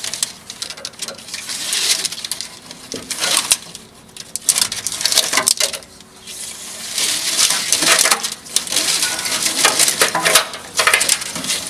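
Rustling and clicking of a plastic-sheathed wiring harness being handled and pressed against the truck frame, in uneven bursts.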